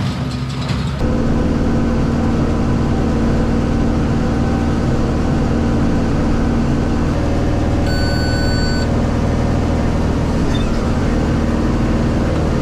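Tractor engine running steadily under load during haying work, with a single electronic beep lasting about a second, some eight seconds in.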